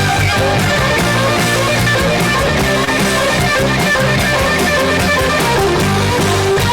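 Loud rock music led by electric guitar, playing continuously with dense, sustained notes.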